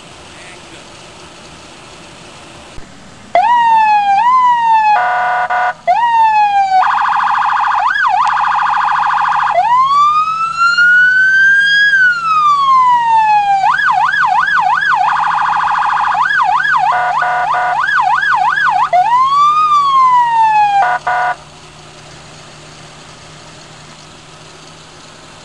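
Electronic emergency-vehicle siren cycling through its tones: short rising-and-falling sweeps, a buzzy air-horn blast, a long wail that rises and falls, then fast warbling. It starts about three seconds in and cuts off suddenly past the twenty-second mark, with the vehicle's engine idling faintly underneath.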